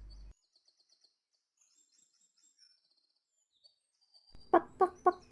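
Faint, high bird chirps and tweets, then, a little over four seconds in, a hen's loud clucking in a quick run of short calls.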